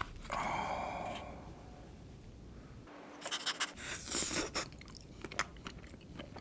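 Plastic lid scraping as it is pulled off a pint cup of ice cream, then close-up wet licking and lip smacking as ice cream is licked off the inside of the lid, a run of short clicks and slurps about three to four seconds in.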